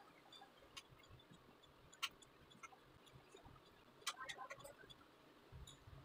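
Near silence, broken by a few faint, short clicks: one about two seconds in, then a small cluster a couple of seconds later.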